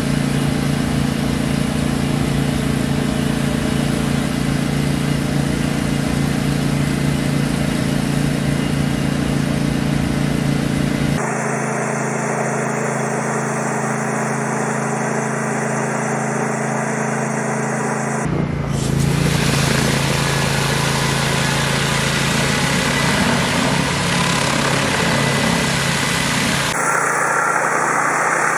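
A pressure washer runs steadily with a constant engine hum. High-pressure water hisses from a Mosmatic Hurricane undercarriage cleaner's spray head against a vehicle's underside and sides. The sound changes abruptly three times, about 11, 18 and 27 seconds in, as the scene switches between vehicles.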